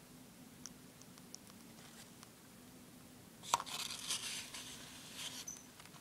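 A one-month-old baby bird being syringe-fed gives a few faint, short, high peeps. About three and a half seconds in comes a click and some two seconds of rustling and scratching.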